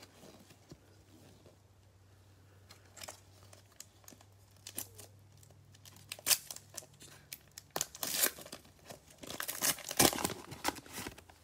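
Foil trading-card pack being torn open and crinkled by hand. Faint rustling at first, then crackling tears from about halfway, loudest near the end.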